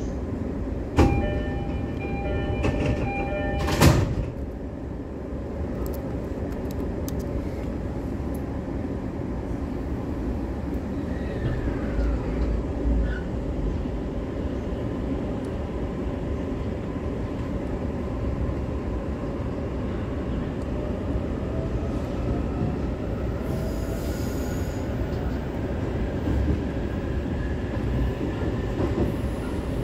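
E531-series commuter train heard from inside a passenger car. A chiming door-closing signal sounds for about three seconds, and the sliding doors shut with a knock near the fourth second. The train then pulls away, with a steady rolling rumble and a faint motor whine that rises in pitch as it picks up speed.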